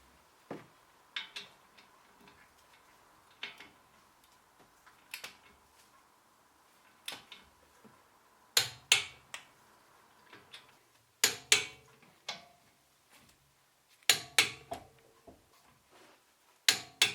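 Scattered sharp metallic clinks and knocks, often two in quick succession, as of tools or metal brake parts being set down and handled. A faint steady hum lies underneath.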